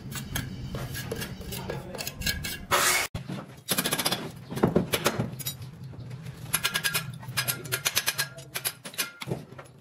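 A hand trowel scraping and tapping on wet mortar. After a cut about three seconds in, a dense run of metallic clinks and clicks as steel rebar and tie wire are handled and tied.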